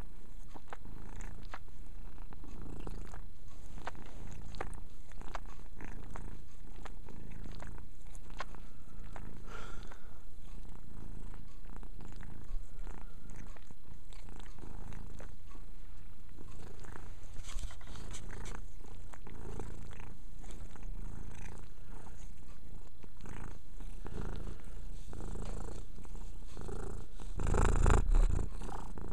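Calico cat purring steadily right against the microphone, with small wet clicks of licking as she grooms her fur. Near the end a louder rubbing noise as she brushes against the microphone.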